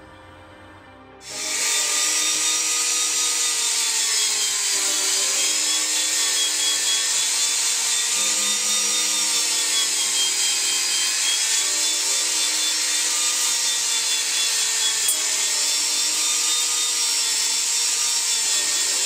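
Electric rotary grinder with a sanding disc running against Chinese juniper deadwood: a steady high-speed whine over a gritty hiss. The whine's pitch dips and rises slightly as the disc bears on the wood. It starts about a second in.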